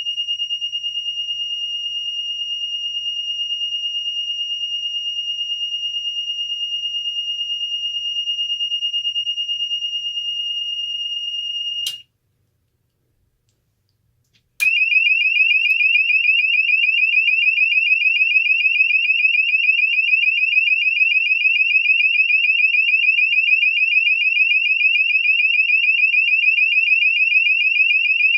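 Cooper MIN-T electronic fire alarm sounder, muffled by toilet paper stuffed into it, cycling through its tone settings. It sounds a steady, continuous high-pitched tone for about twelve seconds, which cuts off. After a couple of seconds of silence it starts a fast warbling tone.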